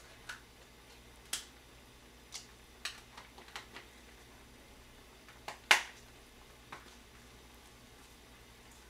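Sharp clicks and taps of a small seasoning container being handled and opened as sesame seeds are about to be added. About a dozen irregular clicks, the loudest a little before six seconds in.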